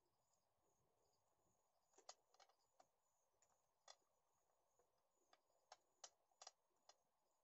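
Near silence broken by about ten faint, sharp clicks and taps, starting about two seconds in: hand-handling noise from tying a chicken onto a metal rotisserie spit with cotton thread.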